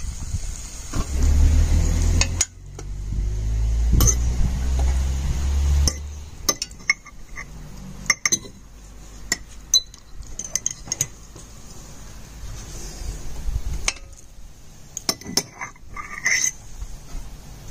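Metal forks clinking and scraping against a glass jar and the pan of a slow cooker as browned beef pieces are packed into the jar, in scattered sharp clinks. A low rumble runs under the first six seconds or so.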